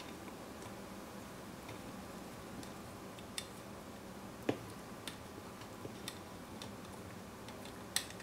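A few small, separate clicks and taps of a screwdriver and plastic parts as the driver board and wires are pried out of an LED bulb's plastic housing, the strongest about halfway through, over a steady low hum.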